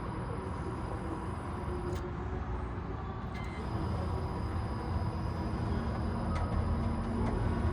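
Amada Togu III automatic punch and die grinder running: a steady machine hum with a low rumble, growing a little louder about halfway through.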